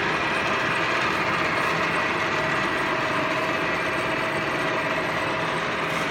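Metal lathe running steadily while turning a shaft, with an even machining hiss and a faint steady whine.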